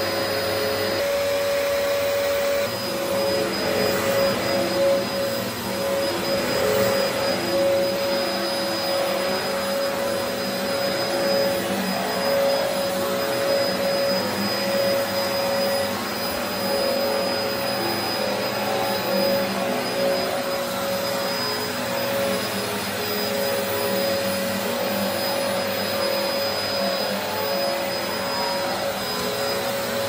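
Dyson DC04 upright vacuum cleaner running as it is pushed over carpet: a steady motor whine over the rush of air, swelling slightly with the strokes.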